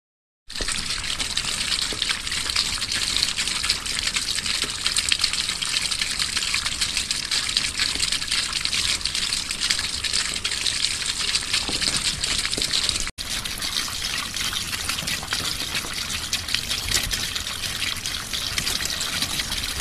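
Water spraying steadily from a small toy shower head and splashing onto a doll, a continuous hiss broken by a momentary dropout about two-thirds of the way through.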